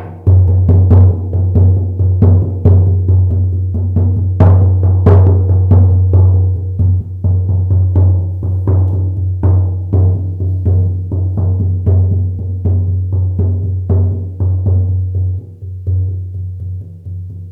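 50-centimetre shaman frame drum struck in a steady rhythm, about three beats a second, each beat ringing into a constant deep boom. The playing gets louder just after the start and eases off near the end.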